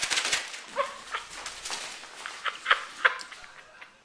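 A pet animal's short sharp cries, about five of them, following a loud hissing noise that fades about half a second in.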